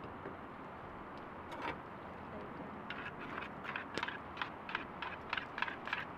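Quick run of light utensil strokes from hand food preparation at a camp table, about three or four a second, starting about halfway through over a steady hiss.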